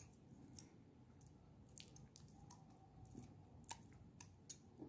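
Faint, scattered clicks and crinkles of aluminium foil being handled and trimmed on a small bottle-cap lure, with a few sharper ticks in the second half.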